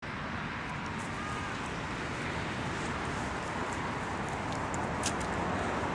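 Steady wind rumble and hiss on the microphone of a handheld camera outdoors, with a few faint clicks about five seconds in.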